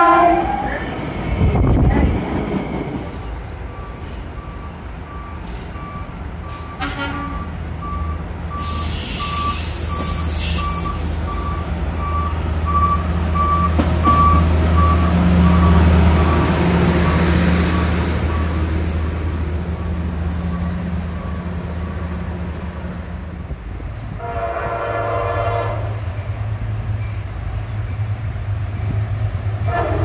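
A brief train horn toot at the start. A Metro-North work train hauling MNCW hopper cars then passes with a steady low engine drone and an evenly repeating high beep. About 24 seconds in, a multi-tone train horn sounds for about three seconds.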